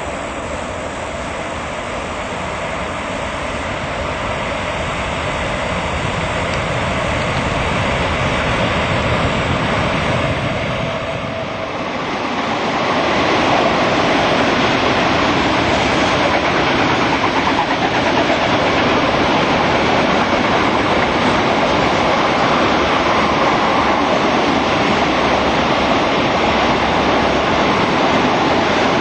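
Freight train coming round a curve, growing gradually louder, then from about halfway its wagons rolling past with a steady, louder noise of wheels on rail.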